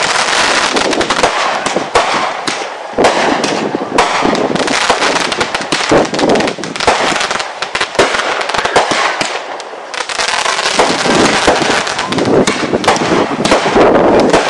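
Fireworks going off: a dense, continuous crackle of many sharp pops with occasional heavier bursts.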